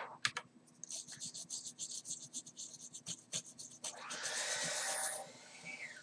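A brush scrubbing flux off a freshly soldered circuit board in quick, scratchy strokes, several a second, followed about four seconds in by a hiss lasting about a second.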